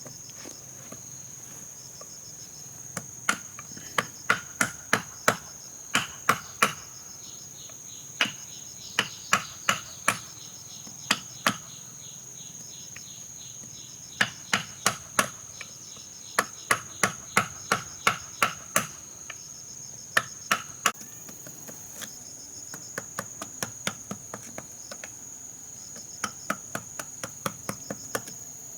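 Hammer blows in runs of several sharp strikes, about two a second, with lighter, quicker taps near the end. A steady high trill of crickets runs underneath.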